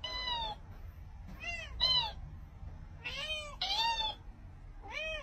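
Cat meowing again and again, mostly in pairs about half a second apart, the second of each pair higher-pitched and louder.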